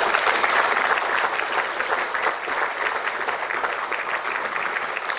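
Audience applauding at the end of a talk, loud at first and slowly tapering off.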